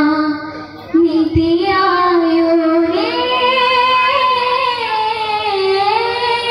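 A child singing a devotional song solo, holding long, slowly wavering notes with a brief breath near the start, then stepping up to a higher note about three seconds in.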